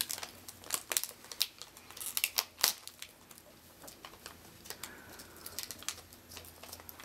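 Foil wrapper of an instant film pack being torn and peeled open by hand: crinkling and crackling foil, busiest and loudest over the first three seconds, then fainter and sparser.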